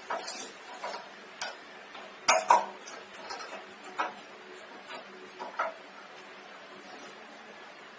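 Irregular light clicks and knocks of hand tools and metal parts being handled, with two louder knocks about two and a half seconds in.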